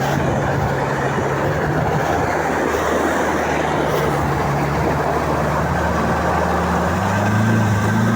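The Toyota petrol engine of an amphibious all-terrain vehicle running steadily under a rushing noise while the vehicle swims. The engine note rises and gets louder about seven seconds in.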